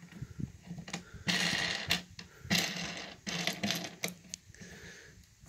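A plastic three-lobed knob being turned by hand onto a brass T-bolt held in a metal boat sport track. Irregular scraping and clicking of plastic and fingers against the metal rail, in several short bursts.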